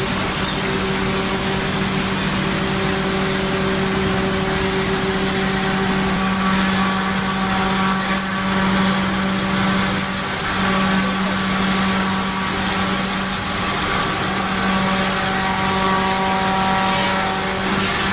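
CNC wood router running, its spindle and router bit cutting wood, a steady loud machine noise with a constant hum underneath.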